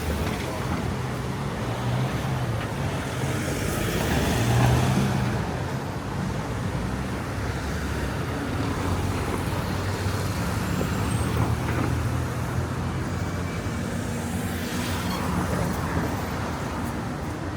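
Street traffic: motor vehicle engines running and passing, with one passing loudest about four to five seconds in.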